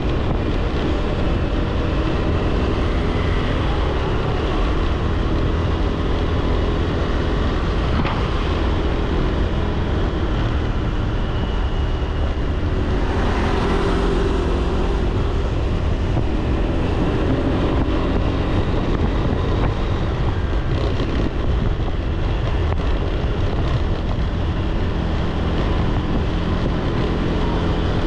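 Wind buffeting the microphone over the steady engine and road noise of a motorbike underway, with a brief swell of noise about halfway through.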